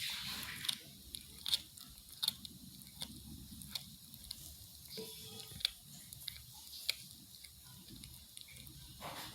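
A cat chewing raw chicken meat: a run of short, wet clicks and smacks, about one every three-quarters of a second. She is eating meat, not crunching bone.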